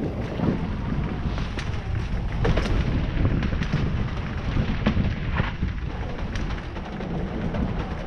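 Wind rumble on an action-camera microphone over the rattle of a Specialized Stumpjumper mountain bike riding fast downhill. Tyres roll over dirt and then over a wooden plank boardwalk, with short knocks and clatters several times.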